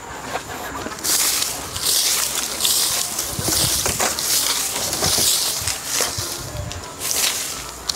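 Swishing strokes of a long bundled-strand hand broom (okoba) sweeping bare sandy earth, about one stroke a second, starting about a second in.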